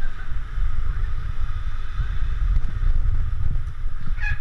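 Wind buffeting an action camera's microphone while inline skating, a steady low rumble with an even hiss of rolling over the paving. A brief high, voice-like sound comes near the end.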